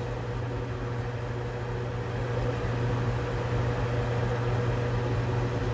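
Metal lathe running steadily with its four-jaw chuck spinning while a center drill in the tailstock drill chuck spot-drills the part: an even machine hum with a steady tone above it.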